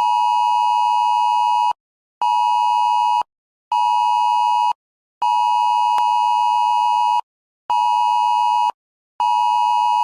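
Emergency alert system test attention tone: a steady two-note beep near 1 kHz sounded in a long-short-short pattern twice, each long beep about two seconds and each short one about a second, with half-second gaps.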